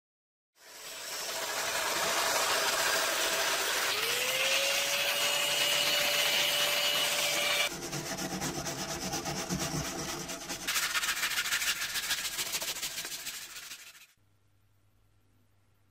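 Disassembled metal lathe parts scrubbed with a wire brush to clean them for restoration: a loud scratchy noise in three segments that change abruptly, with a whine that rises and then holds steady in the first. It stops suddenly near the end, leaving a faint low hum.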